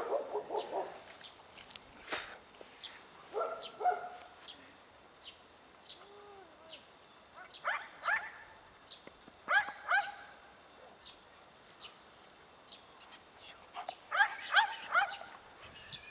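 A Belgian Malinois barking in short runs of three or four quick, high barks, with pauses of a few seconds between runs and a longer run near the end.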